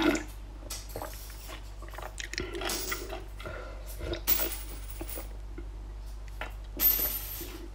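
Someone drinking soup straight from a bowl: short sips and swallows, with a loud slurp about seven seconds in.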